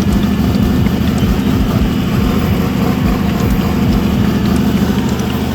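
Diesel engine of a Caterpillar D6R bulldozer running steadily with a deep, pulsing rumble.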